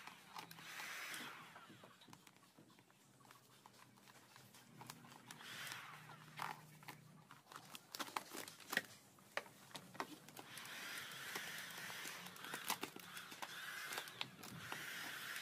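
Hiss of a heat gun's blower coming and going in spells, longest over the last five seconds, with crinkling and sharp clicks of vinyl wrap film being stretched and pressed onto a plastic motorcycle panel.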